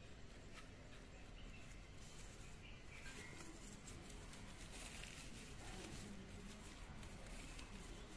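Faint rustling and scratching of dry coconut coir fibre and jute twine being pressed and handled by fingers, with scattered small crackles.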